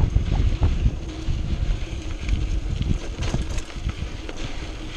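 Wind buffeting the bike-mounted camera's microphone as a rigid mountain bike rolls fast over a dry, powdery dirt trail. The tyres rumble, and the frame and bars give off a steady run of small knocks and rattles over the bumps.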